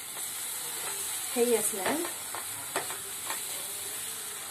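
Onion-tomato masala frying in oil in a non-stick kadai, sizzling steadily while a wooden spatula stirs and mashes it, with scattered scrapes and taps of the spatula on the pan. A brief louder sound comes about a second and a half in.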